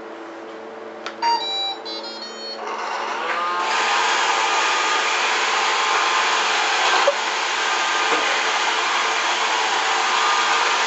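Roomba robot vacuum plays a quick run of electronic beeps, then its motor and brushes spin up over about a second and run loud and steady.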